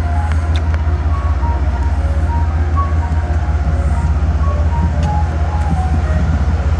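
Amtrak stainless-steel passenger cars rolling slowly past a station platform: a loud, steady low rumble, with short high-pitched tones dotted through it.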